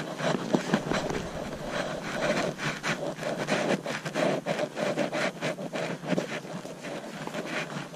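Brambles, dry grass and twigs brushing and scraping against a walking horse and its rider, a continuous rustle full of irregular crackles and snaps.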